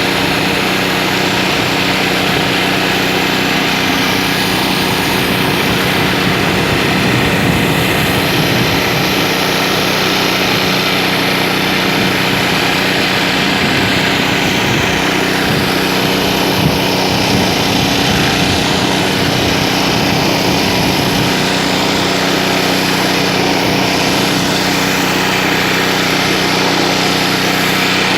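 Pressure washer running steadily, with the hiss of water jets from a rotary surface-cleaning disc scouring concrete.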